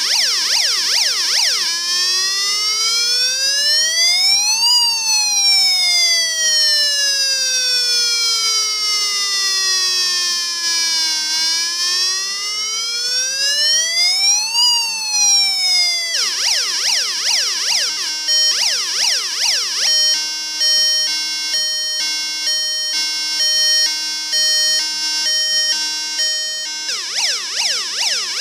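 Electronic siren tones from a UM3561 siren-generator IC, played through a small loudspeaker driven by an NPN transistor, switching between its patterns: a fast repeating warble, then a slow wail that rises, falls and rises again, then a fast warble again, then a stepped run of alternating tones, and a fast warble again near the end.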